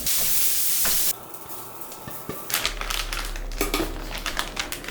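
Onions and red bell peppers sizzling in olive oil in a frying pan, a loud even hiss that cuts off suddenly about a second in. Then quieter scattered clicks and knocks of kitchen handling, over a low hum.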